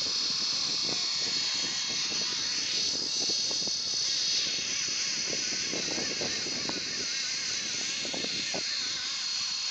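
Radio-controlled model helicopter flying low, its motor and rotors making a steady high-pitched whine that wavers slightly in pitch.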